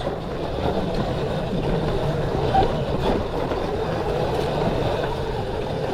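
Steady riding noise from a Sur-Ron Light Bee X electric dirt bike climbing a steep dirt hill: an even rumble of wind and tyres on dirt, with no engine note.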